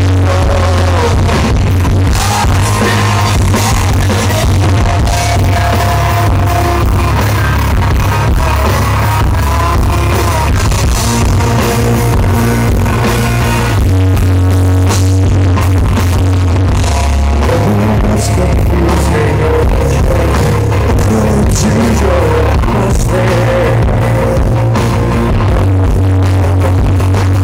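Live rock band playing loud electric guitars, bass and drums, with a male lead vocal. The recording is heavily distorted.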